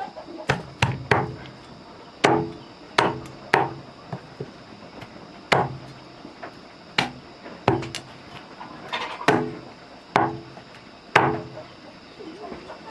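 A tool striking wood again and again, about a dozen irregularly spaced blows, each with a short ringing tone.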